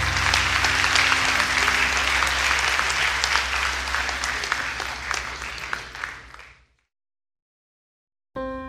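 Audience applause, a dense patter of clapping that fades away over about six seconds; piano music begins near the end.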